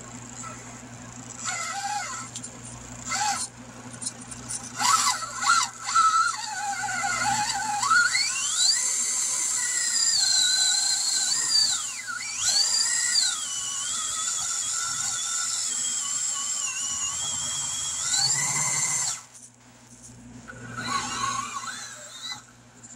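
Furitek Fury Wagon 1/18 RC crawler's electric motor and drivetrain whining in short spurts, then a long high-pitched whine that rises and falls with the throttle as the truck climbs over rocks and tires. The whine cuts off suddenly near the end, with a few clicks of the rig on the obstacles early on.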